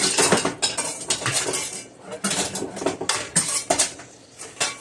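Kitchen utensils clattering and scraping against cookware in quick runs of strokes, easing off near the end.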